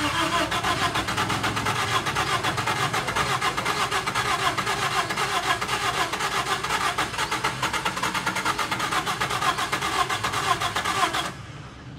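Toyota Corolla GLi's newly fitted engine running at idle, a steady fast clatter. It cuts off suddenly about 11 seconds in.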